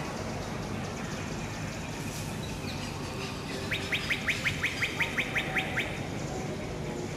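A bird calling: a quick run of about a dozen short rising notes, some six a second, lasting about two seconds from midway through, over a steady background hiss.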